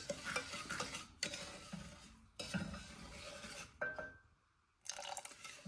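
Wooden spoon stirring and scraping a sugary glaze mix in a small stainless steel saucepan, with scattered light clinks. The sound drops out briefly a little after four seconds in.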